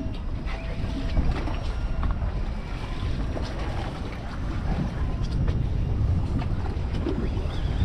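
Wind buffeting the microphone and water lapping against the hull of a drifting boat, a steady low rumble with a few faint ticks.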